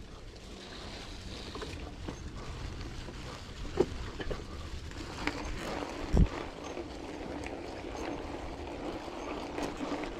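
Bicycle riding along: steady tyre-rolling and wind noise on the microphone, with a few knocks and rattles. The loudest knock is a low thump about six seconds in.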